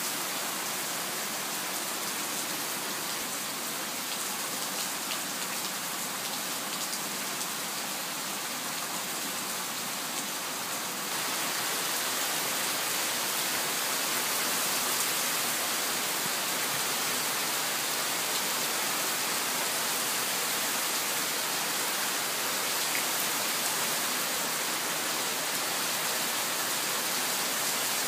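Heavy rain pouring down on a waterlogged lawn, a steady hiss that grows louder about eleven seconds in.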